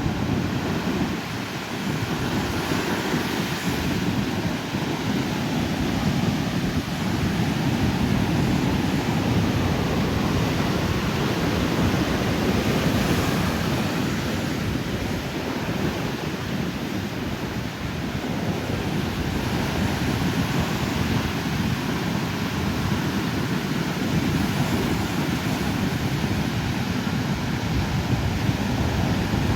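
Ocean surf breaking and washing up the shore, a steady rush that swells and eases, with wind buffeting the microphone.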